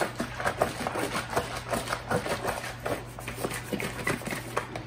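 Vinegar-based barbecue sauce sloshing in a gallon plastic jug as it is tipped and shaken back and forth to mix, a quick run of irregular swishes and knocks. A steady low hum runs underneath.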